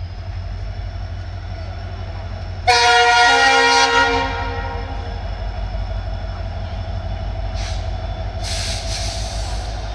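Twin-tone air horn of a WDG4 diesel locomotive sounding one loud blast of about a second and a half, over the steady low rumble of the running train.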